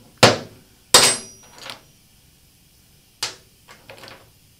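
About six sharp metallic clanks and clinks as bolts, nuts and a cordless driver are handled on the mower's steel deck and in a metal parts dish, the loudest two in the first second, one ringing briefly.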